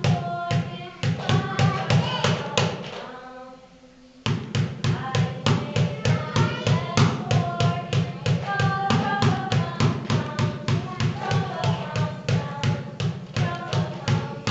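Music with a steady, quick beat and a tune, fading out about three seconds in and starting again about a second later.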